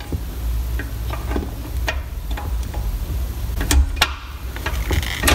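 Six-speed manual shifter of a 2003 C5 Corvette Z06, stripped of its boot, worked by hand through the gates: a string of irregular metallic clicks and clunks, the loudest near the four-second mark and at the end, over a low steady hum. The shifter mechanism is dry and being greased.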